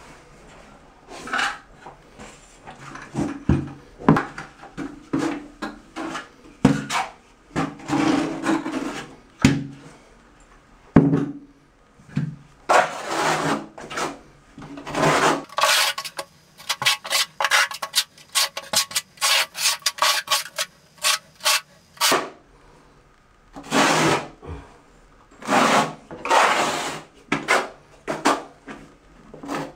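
Steel quarter-inch notched trowel scraping and spreading thin-set cement across a shower floor in repeated strokes. In the second half the strokes come quicker and shorter as the cement is combed into ridges.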